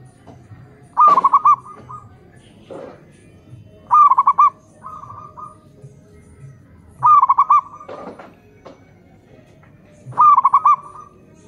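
Zebra dove (perkutut) cooing: a phrase of quick staccato coo notes with a short trailing note, repeated four times about every three seconds.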